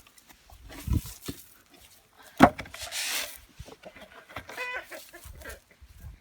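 Chickens clucking, with a couple of knocks; the loudest is a sharp knock about two and a half seconds in, followed by a brief rustle.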